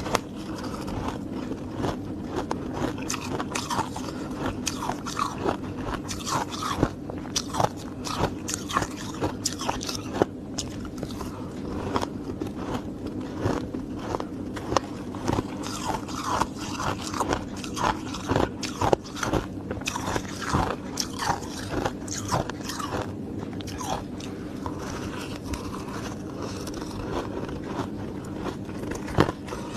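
Close-miked biting and chewing of hard ice, a dense run of sharp crunches and cracks over a steady low hum.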